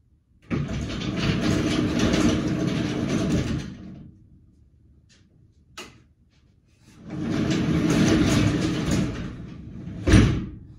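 A sliding door running twice, each time for about three seconds, with a short click between and a heavy thump near the end.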